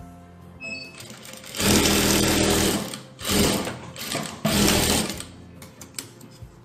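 Industrial single-needle lockstitch sewing machine stitching a folded blouse band, running in three short spurts: a longer run of about a second, then two shorter ones.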